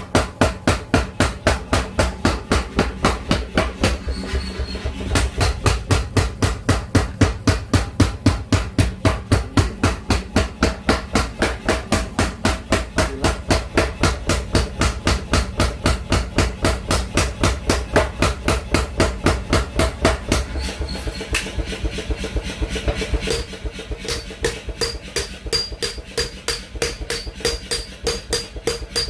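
Blacksmith's hammer striking hot metal on an anvil in a steady, fast rhythm of about three to four blows a second, with a faint metallic ring near the end.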